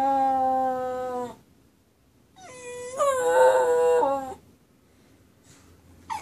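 West Highland white terrier howling: one long steady howl that fades out about a second and a half in, then after a pause a second howl that starts low, rises in pitch and wavers before stopping, and a short rising cry at the very end.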